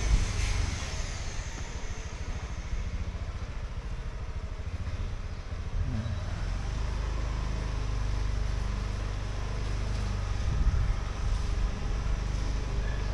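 Street traffic: motorbike and car engines running past, a steady low hum that swells a little near the end.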